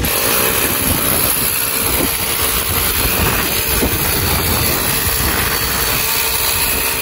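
Corded electric drill running continuously as the solar panel stand is fixed to the concrete roof, a steady, unbroken noise.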